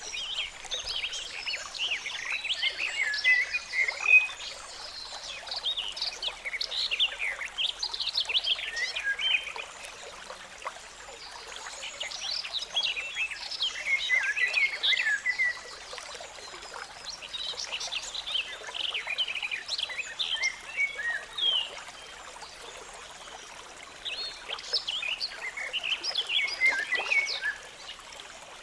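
A chorus of frogs calling in bouts of rapid, stuttering calls that each last a few seconds and come back every five or six seconds, over the steady sound of a flowing stream.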